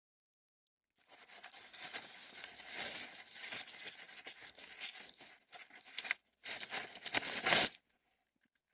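Newspaper crinkling and rustling as a young hedgehog shoves its way into the paper bedding. It starts about a second in, breaks off briefly about two-thirds through, then picks up again and stops shortly before the end.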